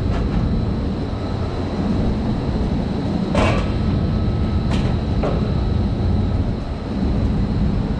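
A sheet-metal boiler cover panel is handled and set down: a sharp metal knock about three and a half seconds in, then a lighter knock a second later. A steady low rumble runs underneath.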